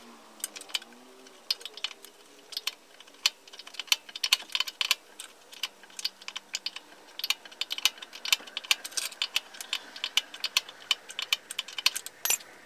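Irregular sharp metallic clicks and rattles of a wrench working the 22 mm nut off the control arm's ball joint, with a 6 mm Allen key holding the stud, coming in quick clusters. A heavier knock comes near the end.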